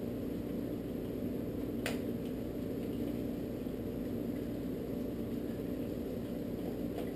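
Granulated sugar pouring steadily from a bag into a bucket of warm grain wash, a soft hiss over a steady low hum. One light click about two seconds in.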